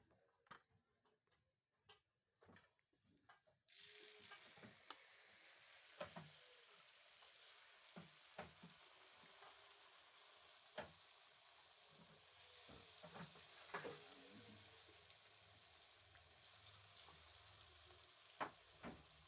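Cauliflower pakoras in gram-flour batter frying in hot oil in a kadai: a steady, faint sizzle that starts suddenly about four seconds in, with a few short knocks scattered through it.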